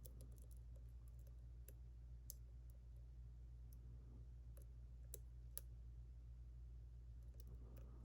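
Faint, irregular clicks of a lock pick working the pins of a JPM Surf pin-tumbler lock under tension, over a steady low hum.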